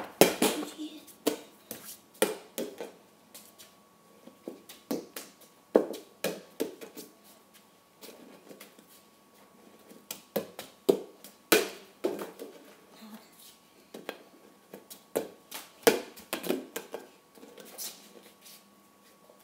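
Flat plastic soccer ball being kicked with a bare foot and bouncing on a hard stone floor, with bare feet slapping the floor: an irregular run of sharp thuds and slaps, echoing in a small room.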